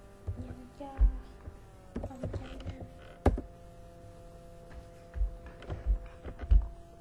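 Scattered computer keyboard keystrokes with several dull low thumps, the loudest about a second in and near the end.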